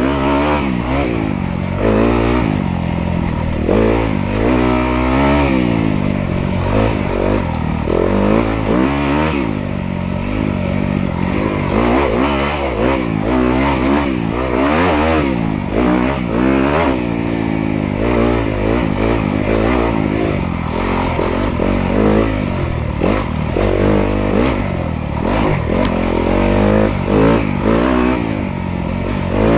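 Dirt bike engine being ridden hard, revving up and down over and over as the throttle is worked, its pitch rising and falling every second or two.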